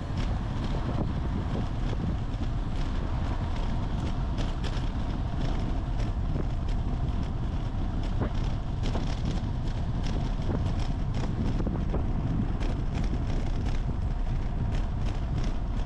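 Wind rushing over the microphone of a camera on a moving bicycle, a steady rush mixed with tyre noise on a concrete road.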